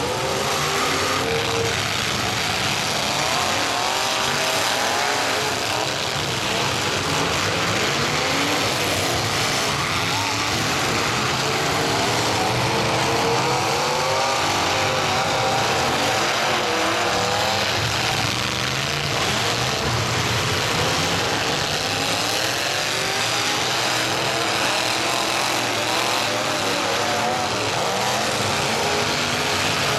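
Several demolition derby cars' engines running and revving hard together, their pitches rising and falling as the cars drive and ram each other in the dirt arena.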